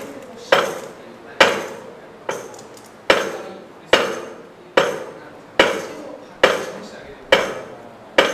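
An 80 kg barbell with bumper plates clanks sharply on each rep of a seal row, each clank ringing briefly. There are about ten clanks at an even pace, a little under one a second.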